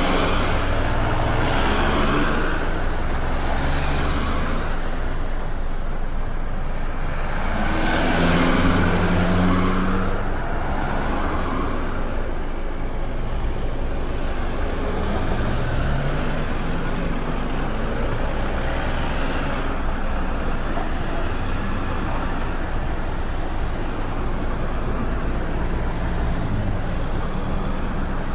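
Busy city street traffic: engines running steadily, with cars and heavier vehicles passing one after another. The loudest pass comes about a third of the way in.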